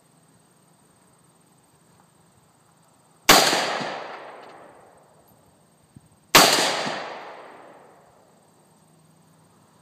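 Two rifle shots from an AK-47, about three seconds apart, each followed by a long echo that dies away over about a second and a half.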